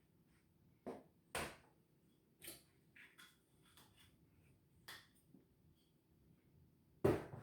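Kitchen handling sounds: a few scattered light clicks and knocks, then a louder knock near the end, as olive oil is added to seasoned chicken wings and mixed in.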